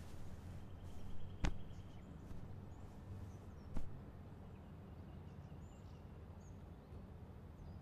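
Quiet room tone with a steady low hum, broken by two sharp clicks, about a second and a half in and again near four seconds, and a few faint high chirps later on.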